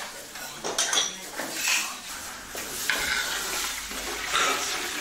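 Clinks and knocks of pots, pans and utensils as a cook works at a wide black iron pan, frying cubes of jellied sweet-potato starch (jianfen).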